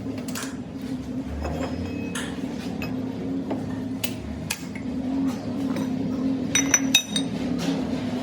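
Metal tools and parts clinking and knocking while a gear is worked on, with a cluster of ringing metallic clinks about two-thirds of the way through. A steady low hum runs underneath.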